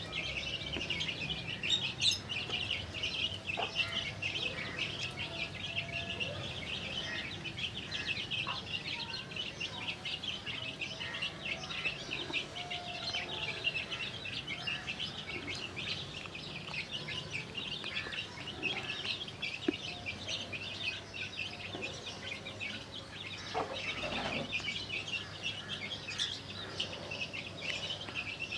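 A brood of desi chicks peeping without pause, many high, quick peeps overlapping, with a few lower clucks from the hen now and then.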